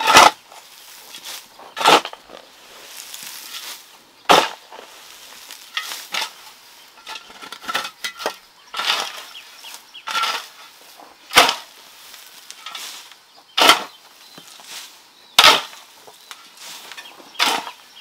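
Repeated sharp strikes, one about every two seconds, each brief and loud over a faint outdoor background.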